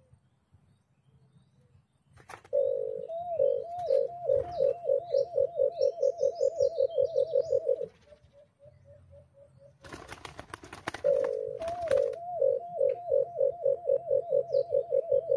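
White-eared brown dove calling: a long run of low hooting notes, spaced out at first and then speeding up to about four a second, given twice. Between the two runs comes a short flurry of flapping from a dove stuck on the glue-smeared perch.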